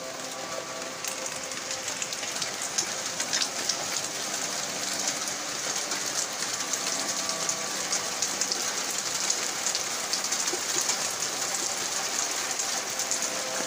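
Rain mixed with small hail falling, a dense crackle of many small hits, getting a little heavier a couple of seconds in.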